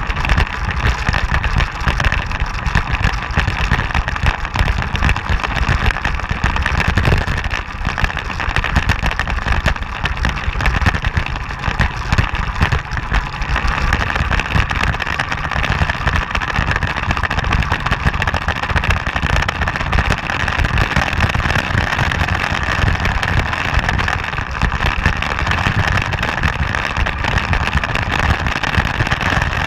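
Motorcycle riding at a steady pace, its engine running under steady wind and road noise on the camera's microphone.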